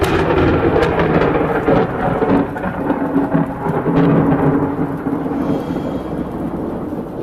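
Loud thunder from a strong thunderstorm: a sudden crackling onset that breaks into a long low rumble, slowly fading over the last few seconds.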